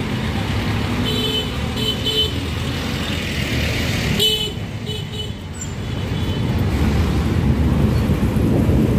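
Busy street traffic with a vehicle horn giving a series of short toots, the loudest about four seconds in as a motorcycle passes close. A low rumble of traffic grows louder in the second half.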